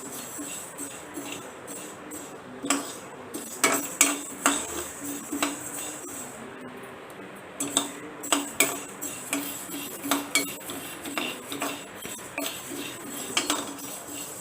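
A metal ladle stirring rice in a hot, dry iron kadai, scraping and clinking against the pan in irregular strokes as the rice dry-roasts to puff.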